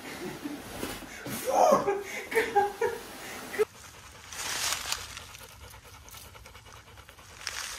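Laughter and excited voices for the first few seconds, then a chocolate Labrador retriever panting.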